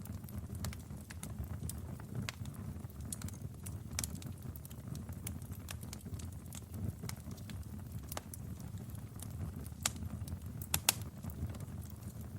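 Fireplace fire burning: a low steady rumble of flames with irregular crackles and pops, one louder pop near the end.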